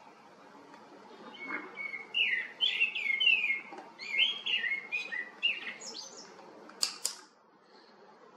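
A bird singing a quick run of chirping notes that rise and fall in pitch, lasting about five seconds, followed by two sharp clicks.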